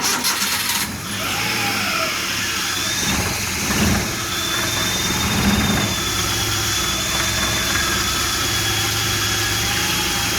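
The freshly rebuilt carbureted three-cylinder engine of a Suzuki catches on its first start after a full rebuild and settles into a steady idle, with two brief rises in revs a few seconds in. It is running smoothly, without misfiring, on new pistons and rings.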